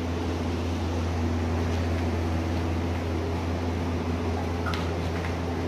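Steady low mechanical hum, like a running fan or motor, with a few faint clicks near the end.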